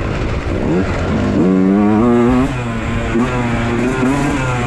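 Beta 125 two-stroke enduro bike engine revving under hard throttle on a dirt trail. The revs climb from about a second and a half in, peak, drop sharply a second later, then run on at lower revs with small blips.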